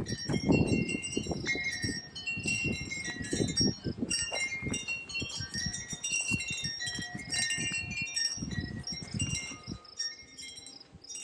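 Wind chimes tinkling irregularly in the breeze, many short overlapping ringing notes, over gusts of wind rumbling on the microphone that die down near the end.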